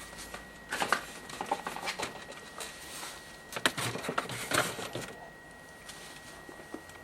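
Irregular clicks, taps and rattles of parts being handled, bunched for about four seconds, over a faint steady high whine.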